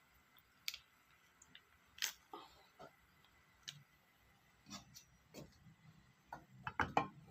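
Scattered light clicks and taps of a plastic cooking-oil bottle being handled while oil is poured into a non-stick pan, with a quick run of louder clicks near the end.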